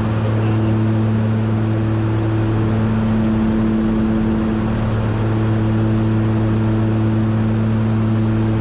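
Piper Aerostar 700's twin piston engines and propellers heard from inside the cabin: a steady, loud drone with a constant low hum that does not change in pitch.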